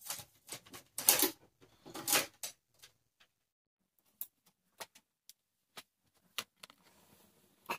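Handling noises while plugging in a vanity mirror's power cord: a few rustling scrapes in the first couple of seconds, then about half a dozen short, sharp clicks and taps, spaced roughly half a second apart.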